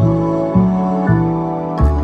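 Background music: a gentle new-age instrumental of held notes that change every half second or so, with a fresh chord struck near the end.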